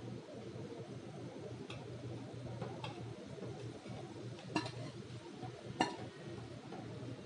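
Four light, sharp clicks of a utensil against a cooking pot, the last two louder, over a steady low hum.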